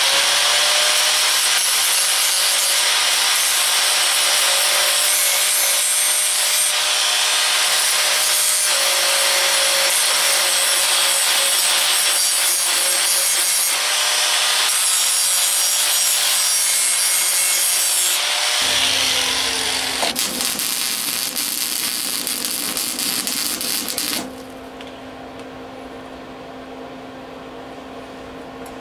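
Angle grinder grinding down a flux-core tack weld on a steel muffler mount: a steady whine with the harsh rasp of metal being ground. About 18 seconds in the whine winds down, a few seconds of rougher scraping follow, and from about 24 seconds in only a quieter steady hum remains.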